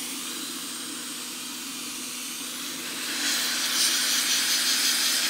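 Hot-air rework station blowing a steady hiss of 400-degree air onto a circuit board to melt the solder under a surface-mount photo solid-state relay, over a low steady hum. The hiss grows louder and rougher about three seconds in.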